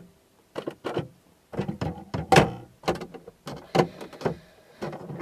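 Irregular sharp clicks and knocks, about a dozen over a few seconds, from hands working at parts of a pickup truck that won't start.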